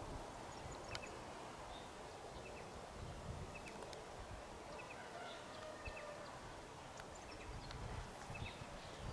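Faint outdoor ambience with small birds now and then giving short, quick double chirps, over a soft low rumble.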